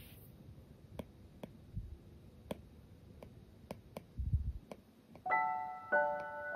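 Soft background piano music comes in with a run of notes about five seconds in. Before it there are only faint scattered clicks and a few soft low thumps.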